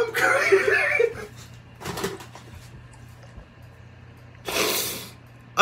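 A man's high, wordless cry of emotion lasting about a second at the start, a shorter vocal sound about two seconds in, and a loud breathy exhale near the end, over a faint steady low hum.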